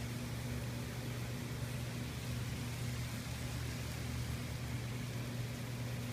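A steady low electric hum under an even hiss, like a kitchen exhaust fan running.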